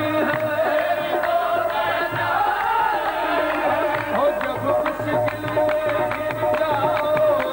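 Qawwali music: a harmonium holding a steady tone, group singing bending over it, and tabla strokes that become sharper and more frequent about four seconds in.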